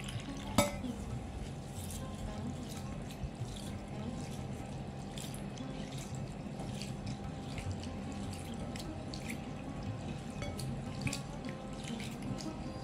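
Water poured into a glass bowl of rice and lentils, then a hand swishing and rubbing the grains in the water to wash them, with small splashes and scattered clicks of grain against glass. A sharp clink about half a second in is the loudest sound.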